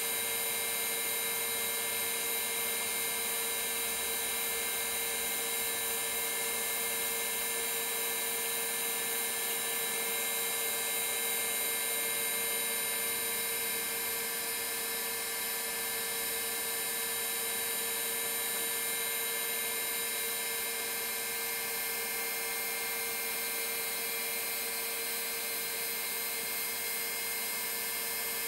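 Boeing 737 vertical gyroscope's rotor spinning at full speed under power, a steady whine made of several held tones.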